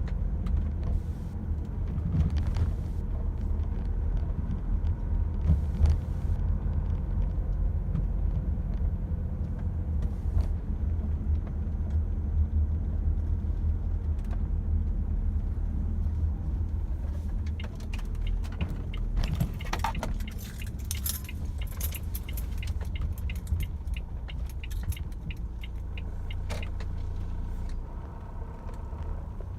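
Renault Espace IV engine running cold, heard from inside the cabin as a steady low rumble. From about halfway through, a light metallic jingling runs over it for several seconds.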